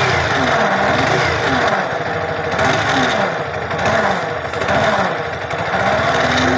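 Yamaha R15 V3's 155 cc single-cylinder engine running with a harsh grinding, bearing-like noise, swelling and easing about every second. The noise comes from a shorted stator (magnet coil) loading the engine while its wire is connected, not from a worn crankshaft bearing.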